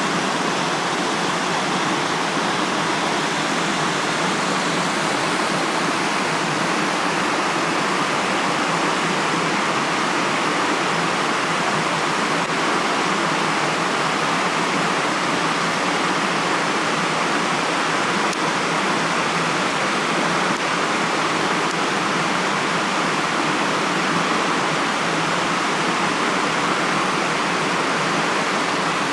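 Mountain stream and waterfall rushing steadily: an even, unbroken sound of running and falling water.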